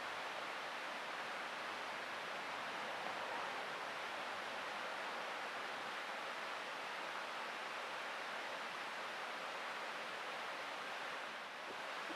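Steady rushing noise, even and unbroken, easing briefly near the end.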